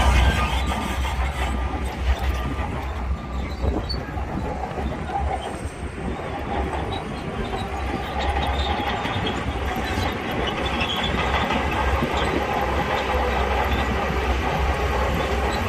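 SHANTUI crawler bulldozer working, its diesel engine running under a deep steady rumble while the steel tracks clank and squeal.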